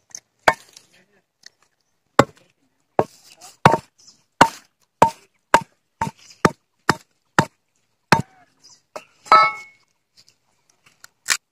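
A curved machete blade chopping into the fibrous husk and hard shell of a germinated palmyra palm seed, with a dozen or so sharp separate strikes, about two a second through the middle. About nine seconds in comes one longer crack as the seed splits open.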